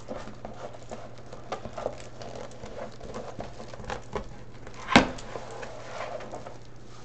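Plastic deco mesh rustling and crinkling as it is rolled and handled, with scattered light clicks. One sharp knock about five seconds in.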